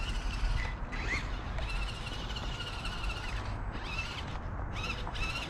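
Electric motor of a radio-controlled monster truck whining in three stretches as it is driven, the pitch wavering with the throttle, over a steady low rumble.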